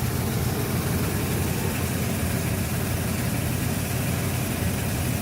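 Natural gas furnace's blower running with a loud, steady low rumble, heard up close. The technician traced the rumble to a bad blower wheel.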